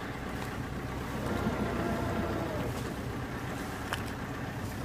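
Motor boat's engine running with a steady low hum, under a constant wash of noise. One brief click near the end.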